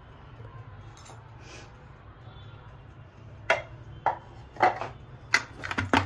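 Metal baking tin full of cake batter being tapped down on the kitchen counter to knock out air bubbles: a run of sharp knocks starting about halfway through, about two a second at first and coming faster near the end.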